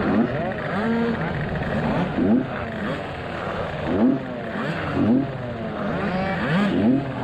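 Several tuned two-stroke racing scooters sitting on the start grid, their engines blipped in short revs that rise and fall in pitch about once a second, over a steady idle.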